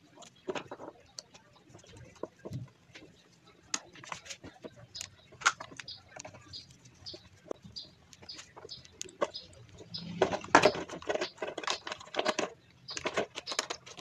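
Clicks, taps and rattling of plastic and metal parts as an electric fan's motor assembly is handled and put back together, thickening into a busy clatter about ten seconds in.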